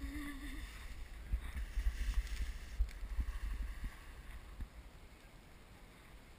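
Wind buffeting the open-air camera microphone on the drifting boat: a low rumble that gusts up with a few sharp thumps between about one and four seconds in, then eases to a quieter steady hiss.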